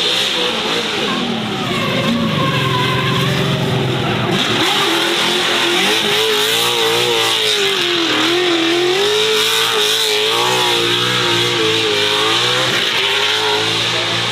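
Racing car engines at high revs, the pitch rising and falling as they accelerate and lift. The sound changes abruptly about four seconds in.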